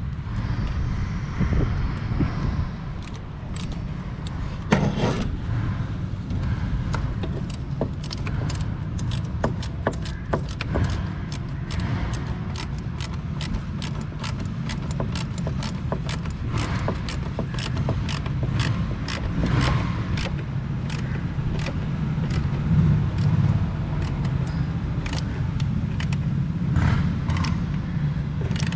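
Hand tools and metal hardware clicking, knocking and scraping as the intake piping and its clamps are fitted and tightened, with irregular short clicks throughout over a steady low rumble.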